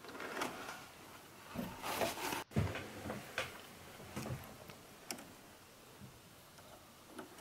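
Faint, scattered clicks and light handling knocks from hands working on a 3D printer's bed and extruder, several in the first few seconds and fewer after.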